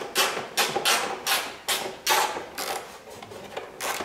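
Small hand ratchet driving a screw into the plastic wheel-well liner: a short rasping click run on each back-stroke, about two or three strokes a second, with a brief pause about three seconds in.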